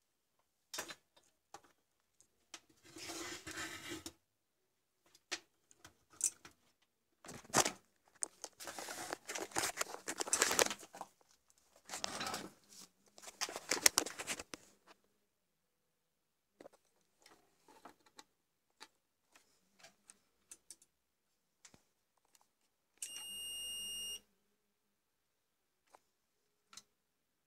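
Rustling and clicking handling noise, then a single steady high-pitched beep about a second long from the UPS's built-in beeper, the alert it gives while powered on.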